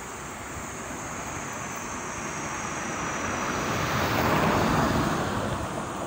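Cicadas droning steadily in a high band, under a broad rushing swell of noise that builds over a few seconds, peaks near the end and fades.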